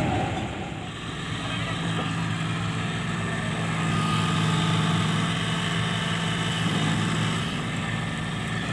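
Diesel engine of heavy farm machinery running steadily with an even, unbroken note.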